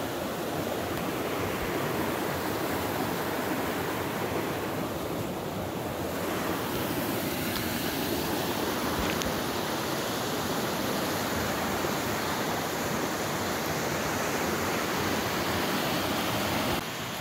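Steady rush of a fast-flowing creek running over rocks, a continuous even hiss of white water.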